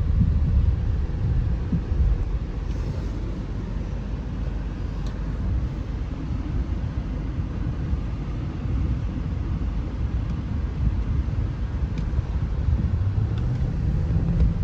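BMW 740Li on the move, a steady low road rumble with a few light knocks from the suspension: worn rubber bushes in the upper and lower control arms clunking.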